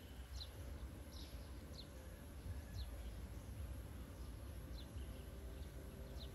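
About half a dozen short, high chirps, each falling in pitch, at irregular intervals of roughly a second, over a steady low rumble.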